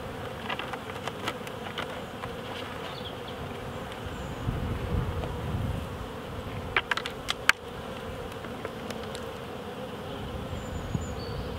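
Honeybees buzzing steadily around an opened nuc box of wild colony bees, with a few sharp clicks about seven seconds in as wooden frames are prised up and lifted out.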